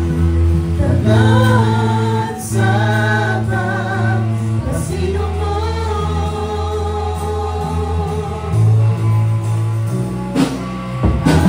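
Live praise-and-worship band music: bass guitar holding long low notes that change every few seconds, electric guitar, and a voice singing a slow, wavering melody, with a few sharp drum hits near the end.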